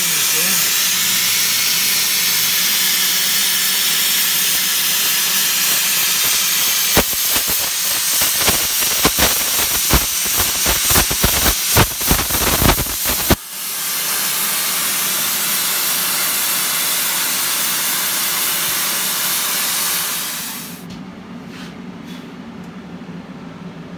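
Plasma cutter cutting steel plate: a loud, steady hiss from the arc and air jet, turning into irregular crackling and spitting from about seven seconds in. The arc cuts off suddenly just past the middle. A steadier hiss carries on for about seven more seconds, then stops, leaving a low hum.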